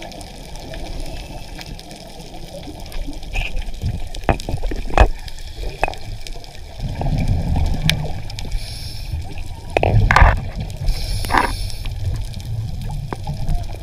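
Underwater sound on a scuba diver's camera: bubbling and gurgling from the diver's regulator, louder twice in the latter half, each time followed by a brief hiss, over a low rumble with scattered sharp clicks and knocks.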